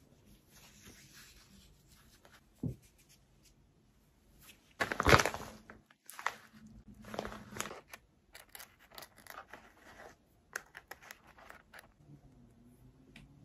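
Plastic packaging of a pack of braiding hair rustling and tearing, loudest about five seconds in, followed by scattered small crinkles and clicks.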